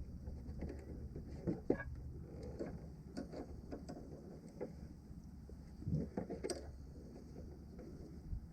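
Scattered light clicks and taps of hand work on parts and fittings, over a steady low hum.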